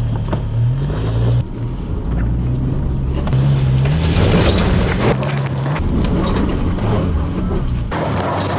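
A four-wheel-drive Isuzu pickup's engine revving up and down as it crawls up a steep, loose rocky track, with stones crunching and scrabbling under the tyres.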